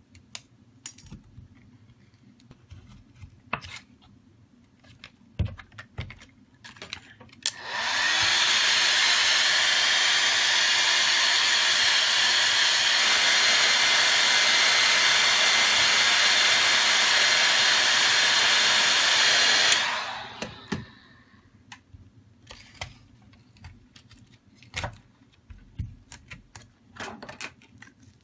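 Handheld heat gun blowing hot air onto a phone's glass back to soften the adhesive. It blows steadily, switching on about eight seconds in with a brief rising motor tone and cutting off about twenty seconds in. Light taps and clicks of handling come before and after.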